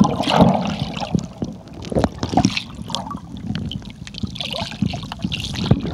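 Water sound picked up by a phone held underwater, muffled, with scattered irregular clicks and knocks.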